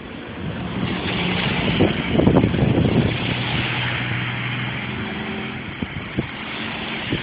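A motor vehicle passing through storm wind: a rush of wind and road noise swells about a second in and slowly fades, with a low engine hum beneath it and a couple of brief knocks near the end.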